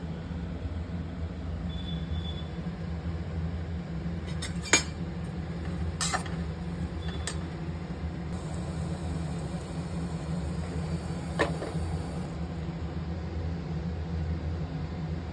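Steady low hum with four sharp clinks of a steel utensil against a steel pan, the loudest about five seconds in.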